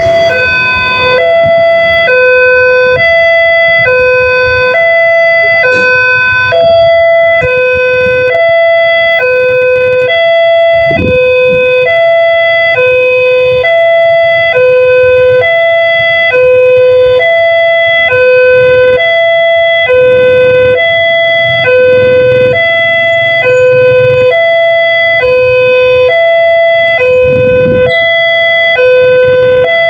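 Electronic railway level-crossing siren sounding its alarm: two steady tones alternating back and forth in a regular hi-lo pattern, about one pair every second and a quarter.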